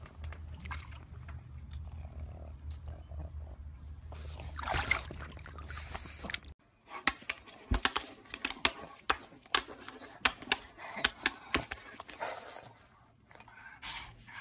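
A low steady hum, then a quick irregular run of sharp taps and clicks, about a dozen in five seconds: a pug's paw striking a dome-shaped push button on a tabletop.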